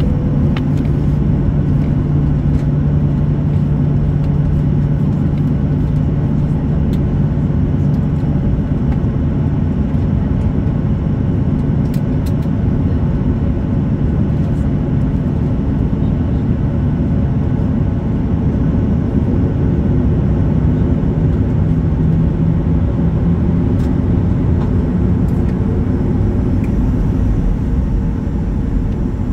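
Boeing 737 cabin noise while taxiing: the jet engines running at low taxi power, a steady hum and rumble with a low tone that rises a little about twenty seconds in.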